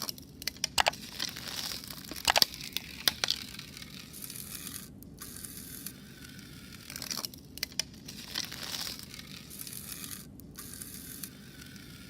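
A rubber balloon just taken out of liquid nitrogen crinkling and crackling, with irregular sharp clicks, as the cold gas inside warms and it swells back out.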